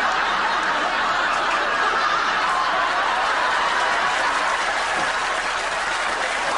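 Studio audience laughing and applauding in one long, steady wave.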